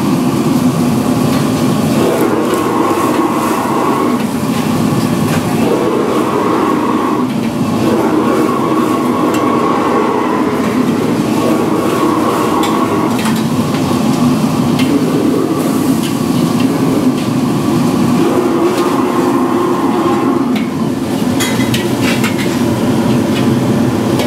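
Commercial gas wok burners running at high flame with a loud, steady rush, with the clatter of a metal ladle against a carbon-steel wok as noodles are stir-fried, the clatter more frequent near the end.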